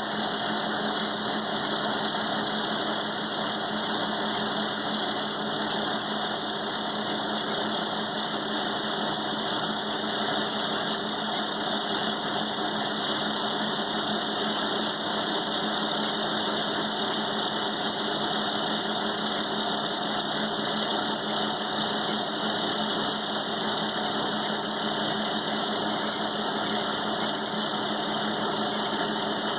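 Milling machine running steadily with an end mill cutting into steel plate: a constant motor hum with a steady tone under even cutting noise.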